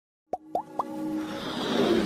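Logo intro sound effects: three quick rising plops about a quarter-second apart, then a swelling whoosh over synth tones building into music.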